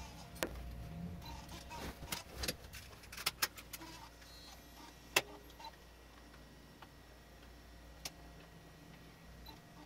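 Scattered mechanical clicks of a Canon GL1 camcorder's buttons and mode dial being pressed and turned by hand, as its controls are tested after reassembly. A cluster of clicks comes in the first few seconds, a single sharp click about halfway, and another later on.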